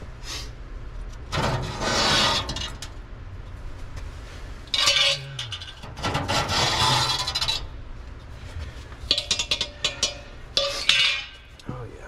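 Metal parts being worked out of a gas furnace's heat exchanger by hand: sheet metal scraping and clinking in several separate bursts, with sharp clicks near the end.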